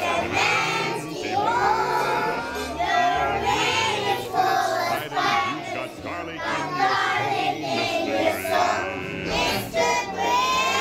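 A group of young children singing together along with a recorded song's backing music.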